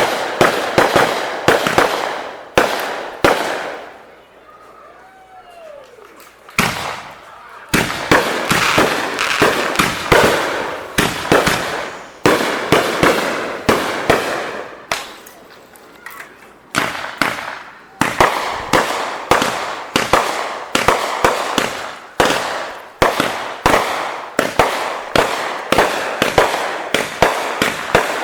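Fireworks going off in rapid, dense volleys of sharp bangs and cracks, with a short lull about four seconds in.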